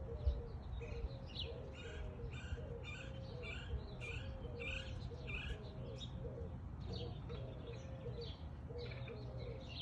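A bird chorus: doves cooing in short low notes repeated over and over, with smaller birds chirping steadily higher up.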